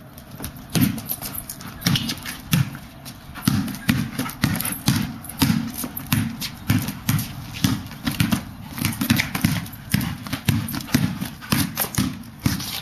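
A soccer ball being dribbled by hand on a flagstone patio: a steady run of thuds, about two a second.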